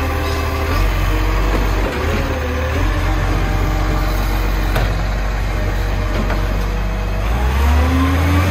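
Garbage truck's diesel engine running steadily, then rising in pitch as it revs up near the end.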